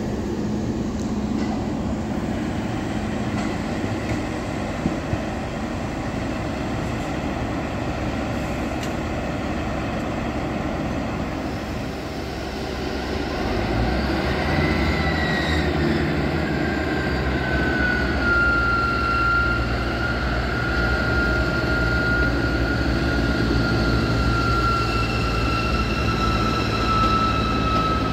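A train rumbles past on the rails. From about halfway, a ScotRail diesel multiple unit powers up to pull away, its engines running hard under a clear whine that slides slowly down in pitch.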